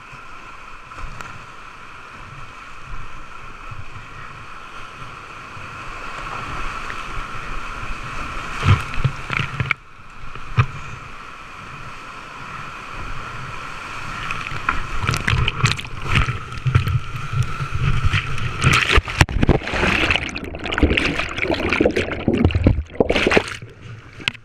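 Whitewater of a steep mountain creek rushing and splashing around a kayak, heard from a helmet-mounted action camera. It grows louder and choppier about halfway through, with many sharp splashes as water hits the camera while the boat drops through the rapids.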